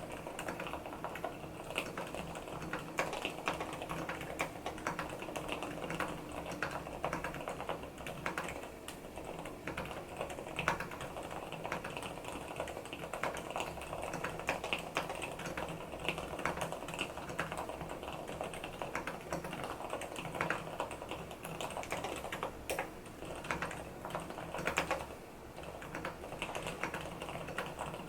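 Continuous typing on a mechanical keyboard with fully lubricated Gateron silent brown switches and silicone dampening: a rapid stream of soft, muted keystrokes, briefly pausing about 25 seconds in.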